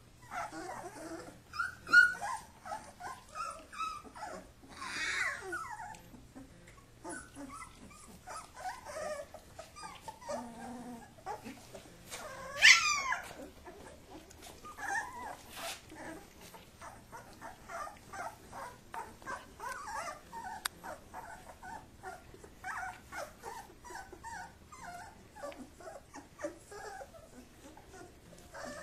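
Kuvasz puppies play-wrestling: a busy run of small growls, whimpers and yips. One sharp, high rising yelp stands out a little before halfway through.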